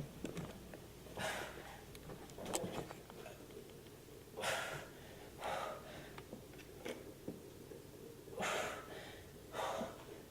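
A person breathing hard during exercise, with short, forceful breaths about every second or so.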